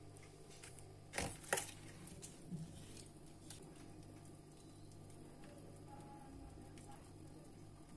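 A plastic blender jar handled over a plastic ice cube tray: two sharp plastic knocks a little over a second in, then scattered faint clicks over a low steady hum.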